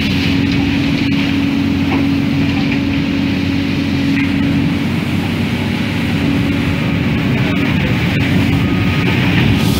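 Steady machinery noise of a hydraulic brush cleaner, driven by a mobile crane's hydraulic system, sweeping coal residue from the floor of an open-top rail wagon, with a constant hum under it.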